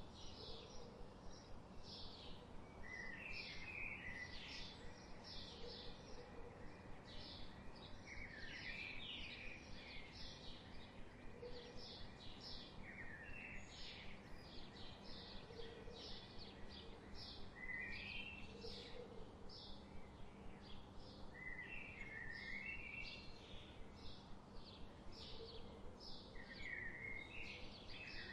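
Forest birds calling: one bird repeats short, high chirps about two to three a second throughout, while another breaks in every few seconds with a short warbled phrase. A faint low call recurs every couple of seconds under a steady low hum.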